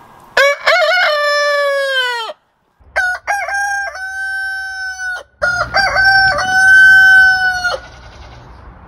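Buff Orpington roosters crowing: three long cock-a-doodle-doos one after another, the last one the loudest.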